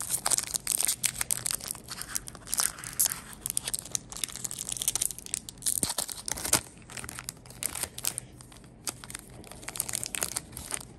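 Foil wrapper of a Pokémon TCG booster pack being torn open and crinkled by hand: a dense run of sharp crackles and rips, the loudest a little past the middle.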